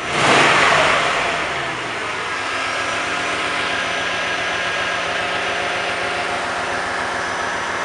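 1995 Cadillac Fleetwood Brougham's LT1 5.7-litre (350) V8 blipped once right at the start, the revs falling back over about two seconds, then idling steadily.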